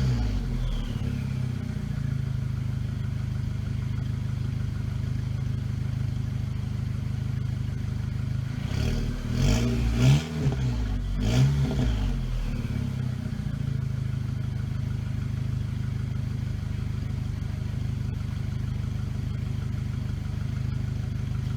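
Rebuilt Volkswagen Mk5 GTI's turbocharged four-cylinder engine idling steadily at about 750 rpm, with a few short revs between about nine and twelve seconds in that give a little rasp and crackle from the exhaust.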